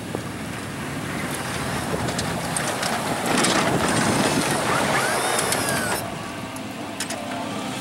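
Pickup truck with a front plow blade driving close by while pushing snow. The engine grows louder as the truck approaches. A rush and scrape of snow and blade is loudest from about three to six seconds in, then eases off.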